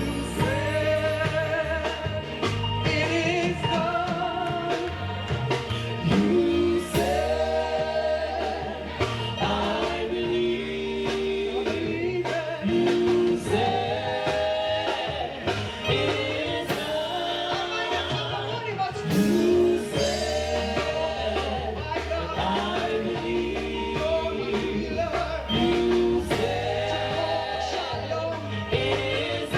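Live gospel worship music: a praise team singing held, sustained phrases over a band accompaniment with a steady low bass.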